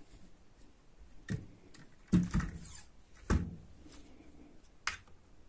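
Handling noises from a Feinwerkbau LP 65 air pistol being turned over and set down on a cloth-covered table: a few short knocks with light rustling, the loudest about two seconds in and another just after three seconds.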